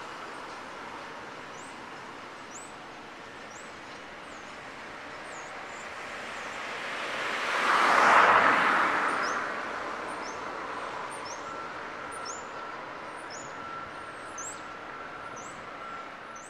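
A road vehicle passing close by: its noise swells to a peak about halfway through and fades away. Small birds chirp repeatedly throughout.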